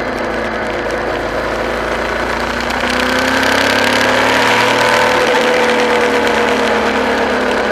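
Vehicle engine running at road speed with road noise. About three seconds in it gets louder and its pitch climbs as it accelerates, then holds steady.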